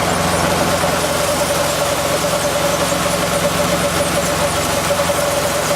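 A machine's engine running steadily, with a steady high whine above its hum.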